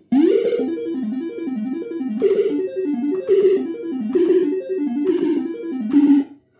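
PCP Supa Streak fruit machine playing a fast electronic tune of short stepped notes, with about five sharp clacks over it. The tune cuts off suddenly near the end.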